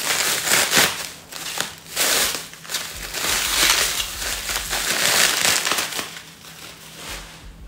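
Plastic packaging crinkling and rustling in irregular bursts as a wrapped item is unwrapped by hand, dying down after about six seconds.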